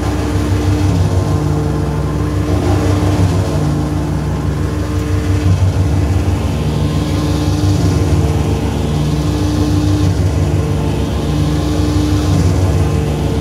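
Modular synthesizer feedback drone: a loud, dense low drone with several steady held tones, and noisy swells that sweep through the high range about every five seconds.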